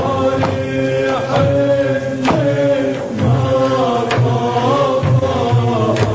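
Music from an Arabic theatre song: a held, chant-like melodic line over a low sustained tone, with a few percussive strikes.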